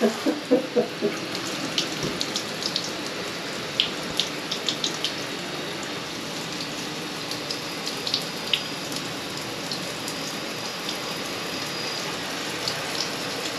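Shower running into a bathtub to test a freshly cleared drain: a steady hiss of falling water with scattered sharp drips and splashes.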